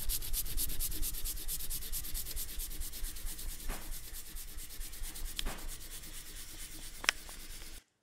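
Rapid, even back-and-forth scribbling of a red drawing stick on sketch-pad paper, with a few sharp ticks, the loudest about seven seconds in. It cuts off suddenly just before the end.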